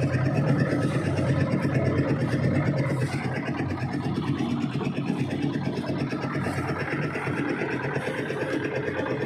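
An engine running steadily at an even speed, a constant drone with no change in pitch.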